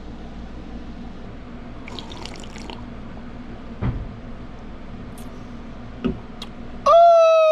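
Water splashing and dripping, with a couple of knocks. Near the end a much louder wavering pitched tone cuts in abruptly.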